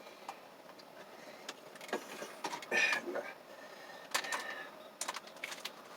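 Scattered clicks, taps and rustles of handling and moving about, louder just before halfway, over the faint steady hum of an RV air conditioner running with the fan off.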